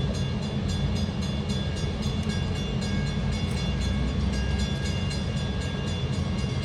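Railroad grade-crossing bell ringing in rapid, evenly spaced strokes, the warning that sounds while the crossing gates lower ahead of an approaching train, over a steady low rumble.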